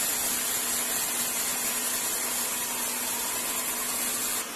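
Black urad dal vadas deep-frying in hot oil, a steady hissing sizzle. The hiss drops away abruptly near the end.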